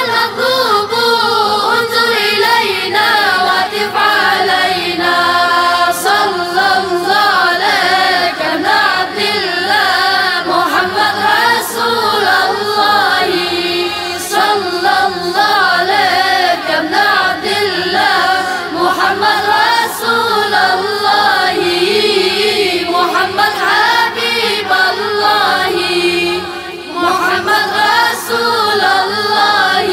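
Boys' vocal group singing an Arabic tawashih, a devotional chant in praise of the Prophet, in long wavering melismatic lines, dipping briefly near the end.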